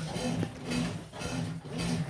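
Consul washing machine in its rinse cycle making a strange low-pitched hum that swells and breaks off in pulses about twice a second.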